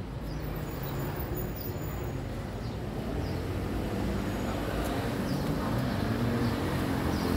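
City street traffic: a steady hum of vehicle engines that grows slightly louder, with a few short high chirps now and then.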